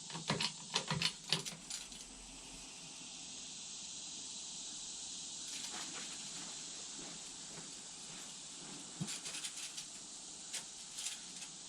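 12-ton hydraulic bottle jack being pumped to lift a log: a quick run of small clicks in the first couple of seconds, then a steady faint hiss with a few scattered ticks.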